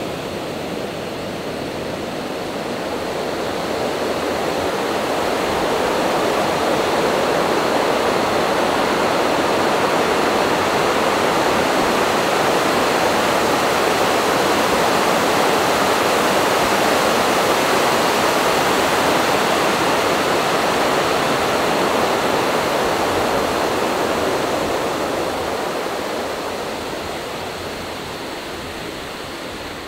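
Rushing water, a steady noise that grows louder over the first several seconds, holds through the middle and fades again near the end.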